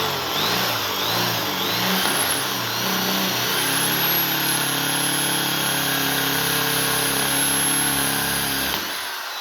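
Power drill boring a pin hole into the cast-iron water jacket of an engine block, with a dull bit. The motor's pitch wavers for the first few seconds, then runs steady until it stops near the end.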